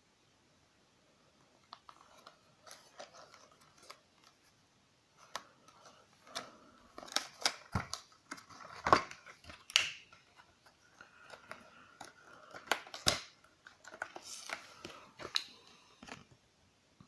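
Miniature figure packaging being opened and handled by hand: an irregular run of sharp clicks, snaps and plastic crinkling, loudest in the middle and stopping about a second before the end.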